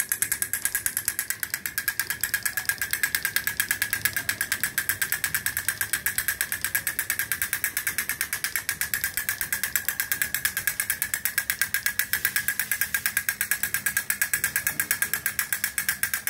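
Clockwork wind-up elephant drummer toy running: its sticks tap the small plastic drum in a rapid, even clatter, with the whir of its wind-up gear mechanism underneath.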